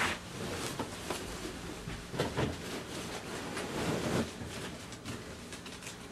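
Fabric rustling and soft knocks as a big mattress pad is stuffed into the tub of a small portable top-loading washing machine, in uneven pushes with a few louder handling sounds.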